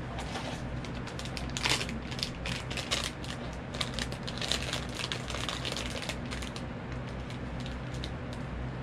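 Crinkling and crackling of a foil blind bag being pulled from its cardboard box and handled open, an irregular run of crackles that eases off about six seconds in.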